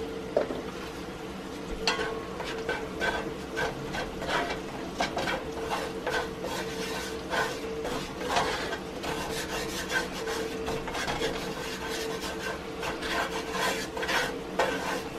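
Wooden spatula scraping and stirring flour into melted butter in a cast iron skillet, working up a roux, in repeated strokes from about two seconds in. The roux is dry and lumpy, which the cook puts down to too little butter.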